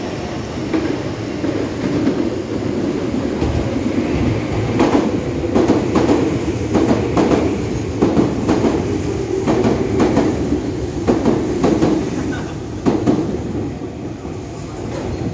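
Limited express electric train running past close by into the station, a heavy rumble with its wheels clacking over rail joints and points in a quick, uneven rhythm from about five seconds in. The clacks thin out as the last cars go by near the end.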